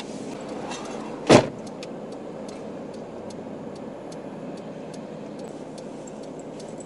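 A single loud thump about a second in, over the steady hum of a stationary car, with a few faint light ticks after it.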